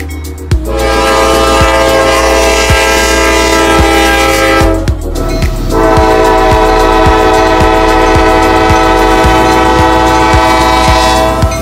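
Diesel freight locomotive's multi-chime air horn blowing two long blasts, the first cut off about five seconds in and the second starting a second later and holding to the end. Beneath it are the locomotive's low rumble and regular low clicks of wheels over the rail joints.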